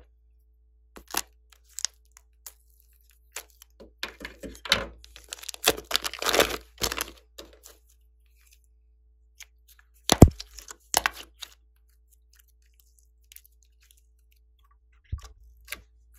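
Plastic piping bag of soft orange clay being squeezed and peeled open by hand: the plastic crinkles and crackles in scattered bursts, thickest a few seconds in, with one sharp snap about ten seconds in.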